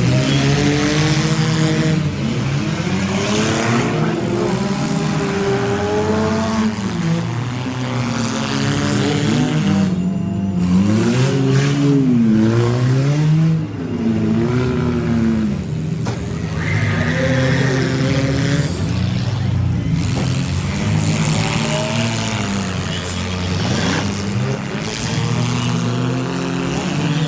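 Several demolition derby car engines revving up and down together, their pitch rising and falling over and over.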